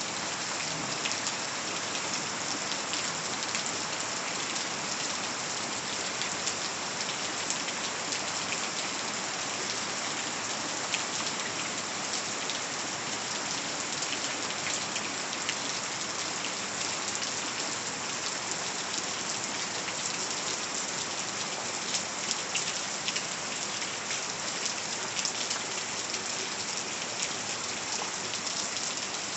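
Steady rain falling and pattering on surfaces, an even hiss with many small drop ticks.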